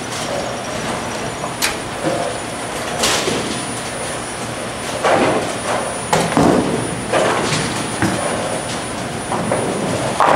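Bowling-alley din: bowling balls rumbling down the lanes and pins clattering at intervals, with several louder crashes and knocks, the biggest near the end.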